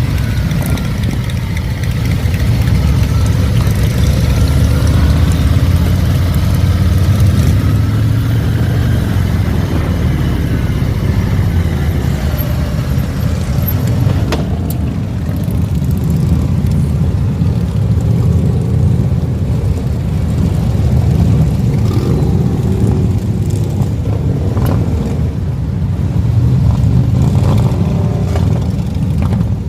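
Several motorcycles riding together in close formation, their engines running loudly, with rising and falling pitch in the first several seconds as throttles open and ease off.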